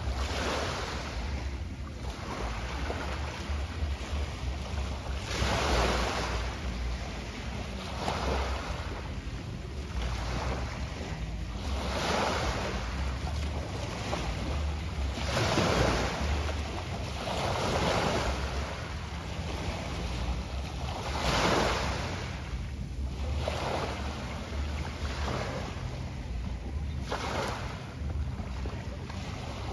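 Small sea waves washing in and out on the shore, a hissing swell every few seconds, with wind buffeting the microphone in a steady low rumble.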